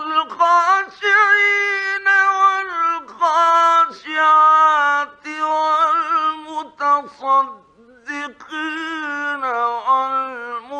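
A male reciter chanting the Quran in a high, melodic style, with long held notes and ornamented turns; an old 1950s Egyptian Radio recording. The voice enters after a pause, breaks briefly about eight seconds in, then resumes.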